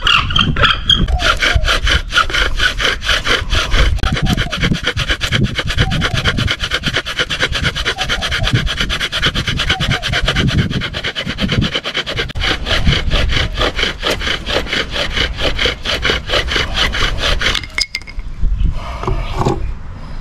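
Wooden fire-drill spindle grinding into a hearth board for friction fire. It rubs and squeals in fast, even back-and-forth strokes, then stops abruptly near the end.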